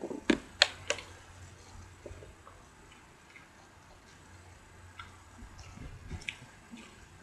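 Three sharp crackles in the first second as a burrito's wrapper is pulled off and flung away, then soft chewing with small wet mouth clicks as the burrito is eaten.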